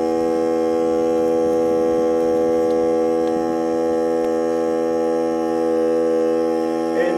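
Air compressor running steadily with a constant humming drone, pumping air to refill a flat tire.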